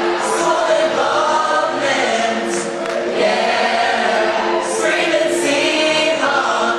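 Many voices singing together in held, changing notes, choir-like with no instruments standing out.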